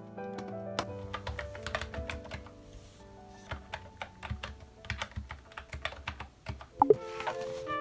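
Typing on a Mofii keyboard with round typewriter-style keycaps: an irregular run of key clicks over soft background music. Near the end there is a brief, louder swooping sound.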